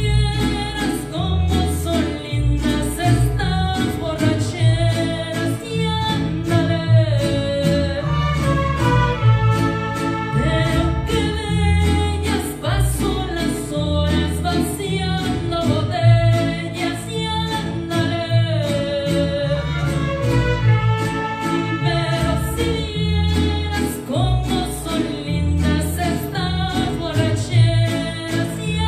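Mariachi ensemble playing a song with a woman singing the lead over rhythmically strummed guitars and a deep bass line; the violins play at the start, then rest while the voice and guitars carry on.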